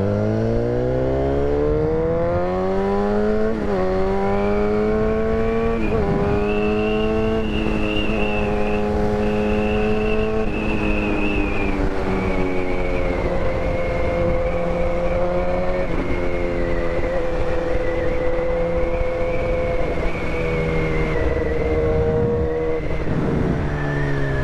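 BMW S1000RR's inline-four engine accelerating hard, its revs climbing through the gears with quick upshifts about four and six seconds in. It then holds steady at high revs and eases off near the end.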